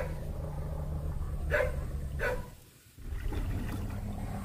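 A motor running steadily with a low hum. Two short barks come about one and a half and two and a quarter seconds in. The sound drops out briefly just before three seconds.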